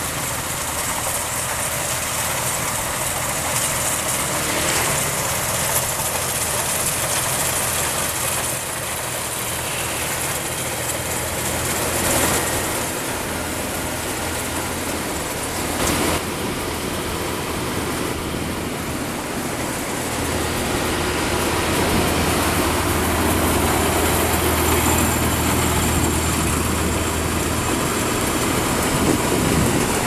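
GreenStar rice combine harvester running steadily, its engine humming under the even noise of the working machinery. There are a couple of brief louder knocks partway through.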